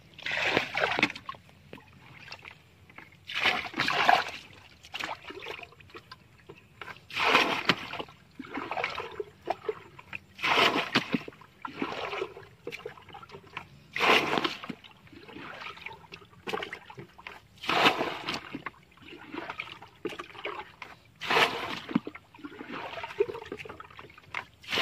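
Water scooped up with a plastic bucket and thrown out of a shallow, muddy canal, a splash about every three to four seconds with dribbling and sloshing in between. This is hand-bailing the canal dry (limas) so the fish left in it can be caught.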